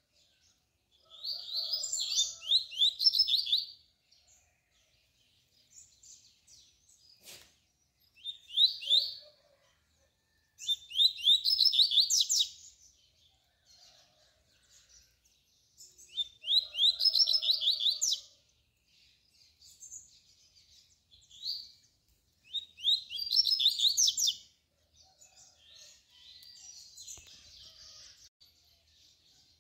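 Male double-collared seedeater (coleiro) singing in five loud phrases of quick, high, repeated notes, each one to two and a half seconds long and several seconds apart, with soft twittering between them.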